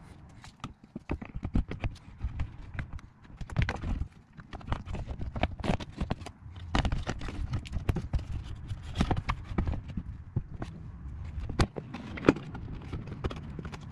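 A VW Golf Mk6's plastic battery tray being handled and pushed into place in the engine bay: a run of irregular knocks, taps and clatters of hard plastic against its mounts, with a sharper knock near the end as it locates.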